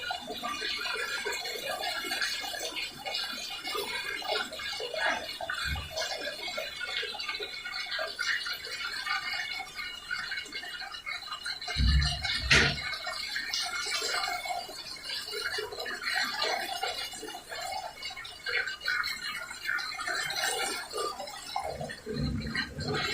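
Public restroom toilet flushing without stopping: water rushing and running into the bowl, steady and unbroken. A louder low bump comes about halfway through.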